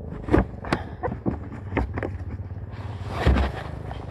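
Knocks and rubbing from a person clambering over the side of a boat's hull, with a louder scrape about three seconds in, over the steady low hum of an idling engine.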